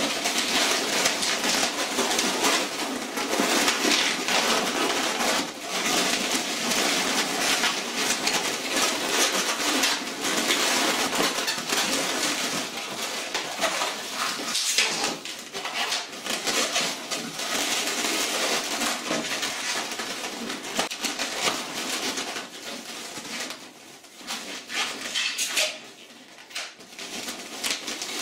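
Latex 260 modelling balloons squeaking and rubbing against each other as hands twist them into bubbles and lock them together. It is quieter for a few seconds near the end.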